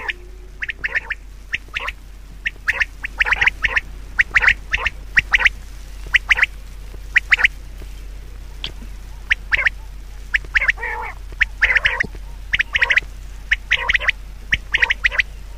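Animal calls: short, harsh calls repeated in quick clusters of two to four, over a steady low hum.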